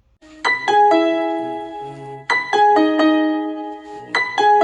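Background music: a piano or electric-piano melody of struck notes that ring and fade, a short falling three-note phrase repeated about every two seconds.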